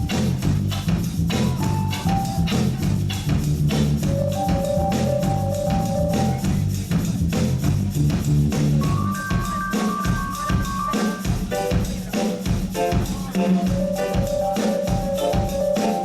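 Live reggae band playing an instrumental, with a drum kit keeping a steady beat under a heavy bass line and a melody of held notes. About nine seconds in the bass drops away, leaving the drums and a higher melody.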